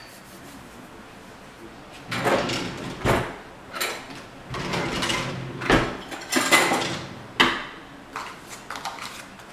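A wooden kitchen drawer is pulled open and rummaged through, with utensils clattering inside. The clatter starts about two seconds in and has a few sharp knocks along the way.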